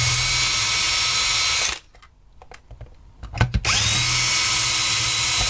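Cordless power drill boring into the corner of a plastic streaming-box case, forcing it open where a security screw can't be undone. The drill runs twice for about two seconds each, winding up in pitch at each start, with a short pause and a few knocks between.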